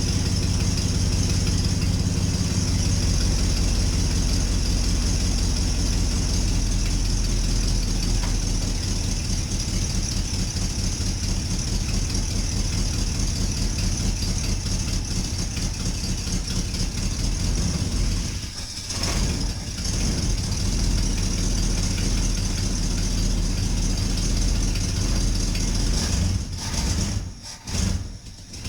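Ford 460 big-block V8 idling steadily in a '65 F250, running rough through leaking exhaust with a blown muffler. The sound drops away briefly about two-thirds in and again near the end.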